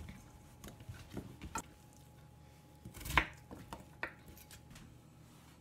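Kitchen knife cutting daikon radish into cubes on a plastic cutting board: a few scattered knocks of the blade on the board, the loudest about three seconds in.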